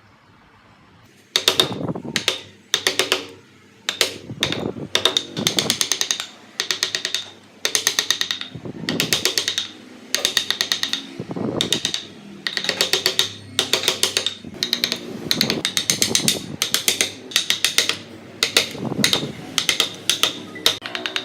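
Chainsaw revved in short repeated bursts, each a rapid rattling pulse lasting under a second, starting about a second in.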